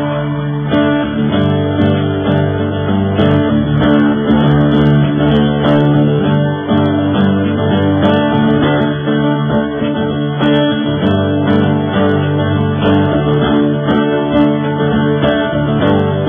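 Rock band playing live: strummed electric guitars over bass in an instrumental passage with no singing.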